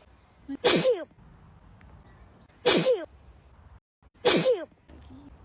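A girl sneezing three times in a row, each a sharp "achoo" that falls in pitch, spaced about a second and a half to two seconds apart.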